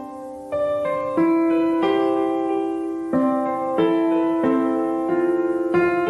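Background music: a slow piano piece, with a new note or chord struck about every two-thirds of a second and left to ring.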